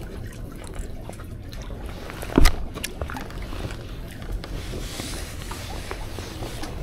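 Steady low rumble of wind and sea, with a few light clicks and one sharp knock about two and a half seconds in as a sabiki rig and its catch are handled over the concrete tetrapods.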